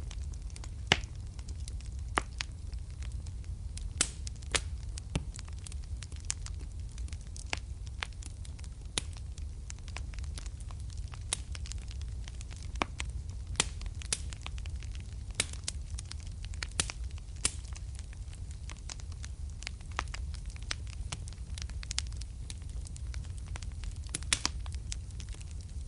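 Wood fire crackling in a fireplace: a low steady rumble of the flames with sharp pops and snaps at irregular intervals.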